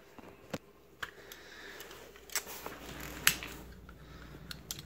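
Scattered light clicks and taps of handling a retractable box cutter and a cardboard box, the sharpest about three seconds in and a quick run of clicks near the end.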